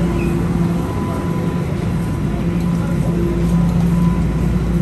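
Steady rumble and hum inside a Toronto subway car, with a low, even humming tone from the train.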